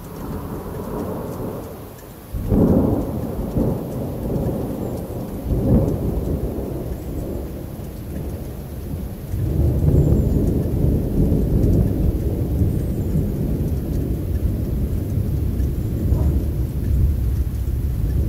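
Thunder rumbling during a night storm, with a sudden loud clap about two and a half seconds in, another peak near six seconds, then a long rolling rumble from about nine seconds on. Rain falls throughout.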